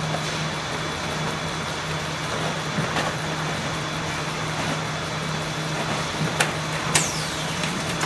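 Bandall automatic banding and stacking machine running, with a steady motor hum and conveyor noise. A few sharp clicks come near the end, one followed by a short falling swish.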